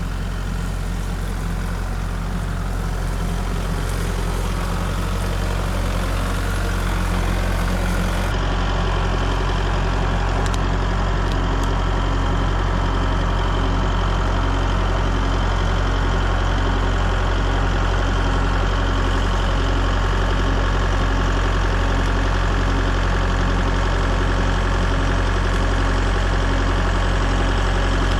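An engine running steadily at idle, with a low, even pulse.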